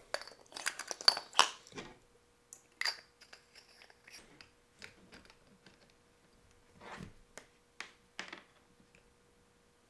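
Scattered clicks, taps and scrapes of hands handling a flashlight battery tube holding two 26650 lithium-ion cells and touching multimeter probes to it, the busiest in the first two seconds. A faint steady hum runs underneath from about two seconds in.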